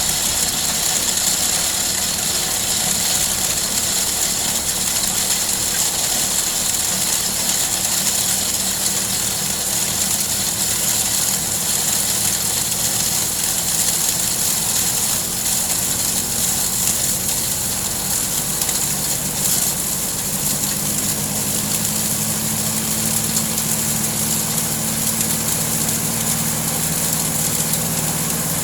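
Small four-stroke grass-cutter engine running steadily, driving a portable goat-manure grinder; its note shifts and settles about two-thirds of the way through.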